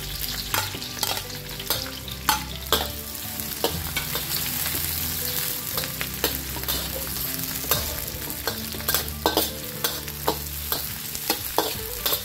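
Onion, garlic and ginger sizzling in hot cooking oil in a metal wok, stirred with a metal spatula that scrapes and clicks against the pan many times.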